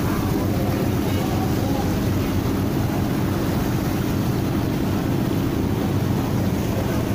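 Ro-ro ferry's engines running with a steady low rumble, its propeller wash churning muddy water alongside the hull.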